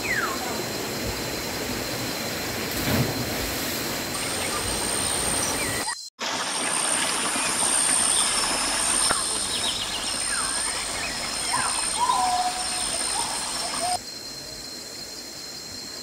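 Steady rush of a waterfall with birds chirping over it and a high, steady insect whine. The sound drops out for an instant about six seconds in and becomes quieter near the end.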